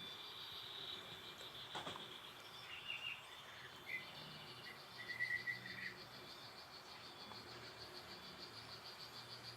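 Nature-ambience sound effects played in reverse: a steady, fast-pulsing cricket trill, with a few short bird-like chirps between about three and six seconds in.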